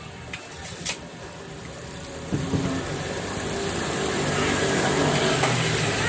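A motor vehicle's engine running, coming in about two seconds in and growing steadily louder. A few light clicks come before it in the first second.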